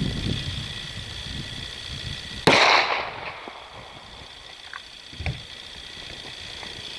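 A single 10mm pistol shot about two and a half seconds in, firing a 180-grain cast hollow-point handload, with a short echo trailing off.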